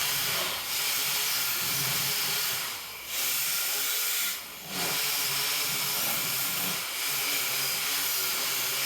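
Angle grinder grinding JB Weld epoxy off a Vespa's aluminium engine case: a steady hiss of grinding, lifted off briefly twice near the middle.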